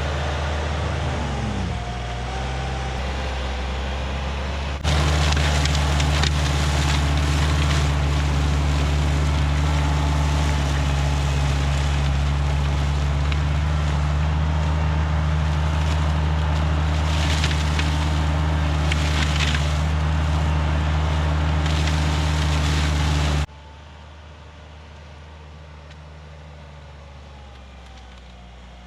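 An engine running steadily with a low, even hum, which gets louder at about five seconds in and drops away sharply near the end.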